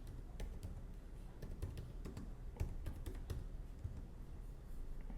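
A series of light, irregular clicks and taps, about a dozen spread over a few seconds, over a steady low hum.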